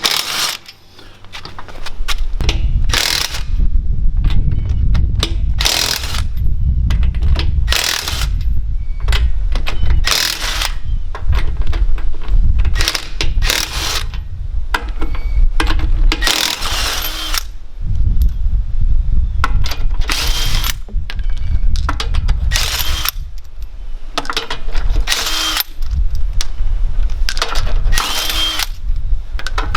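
Harbor Freight Earthquake XT cordless 1/2-inch impact wrench working lug nuts, in about a dozen short, loud bursts of hammering spread across the stretch. A low rumble runs underneath.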